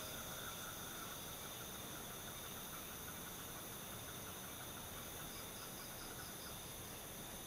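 Faint insects trilling over a steady hiss, with a brief higher, quicker chirping near the end.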